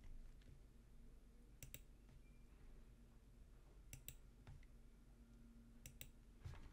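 Faint computer mouse clicks in three quick pairs, about two seconds apart, as points are placed on grid squares in the software.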